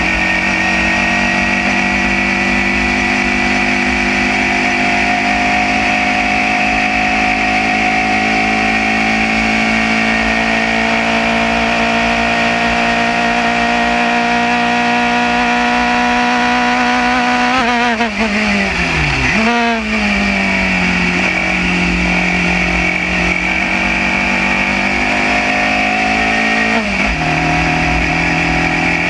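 Single-seater race car engine at high revs, heard onboard, its pitch climbing slowly along a straight. About two-thirds in the revs fall sharply with a quick dip and recovery as the car brakes and downshifts. They then sag through the corner, build again and drop in a step near the end as it changes up.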